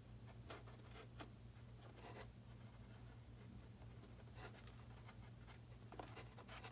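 Faint rustles and soft clicks of hands working a small piece of tape onto the LED wires, over a steady low hum.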